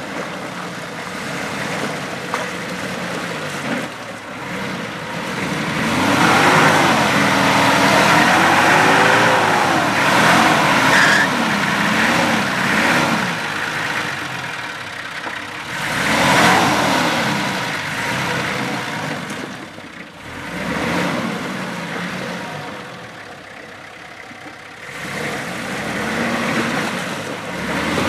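Nissan Patrol Y60's 4.2-litre straight-six diesel engine revving up and down repeatedly as the 4x4 drives through deep mud. Several hard surges of engine speed come with quieter easing-off stretches between them.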